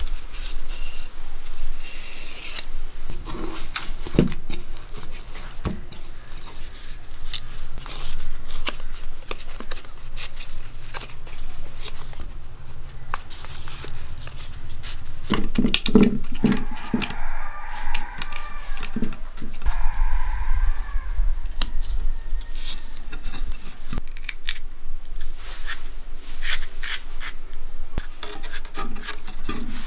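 Close hand work with leaves and dough: a small knife cuts and scrapes along a thin leaf stem, vayana leaves rustle and crinkle as they are handled and rolled, and sticky dough is pressed by hand, with many small clicks and scrapes.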